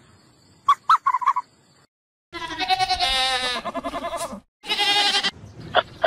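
An animal calling: a short clicking chatter about a second in, then two long quavering calls, the first about two seconds long and the second shorter.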